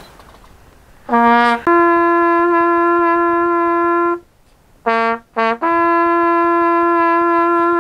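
Trumpet sounding a call about a second in: a short low note rising into a long held higher note, then after a brief pause two short low notes and another long held note.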